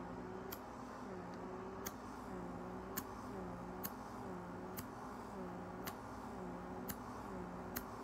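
Small electric face pore vacuum running at its lowest suction setting with the microcrystal exfoliating probe on the cheek: a steady low pump hum whose pitch sags and recovers about once a second, with a sharp click about once a second.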